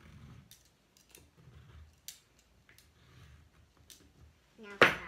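Black crayon scratching on paper as it is drawn around an upturned bowl, with several light sharp clicks. A short voice sound about four seconds in is the loudest thing.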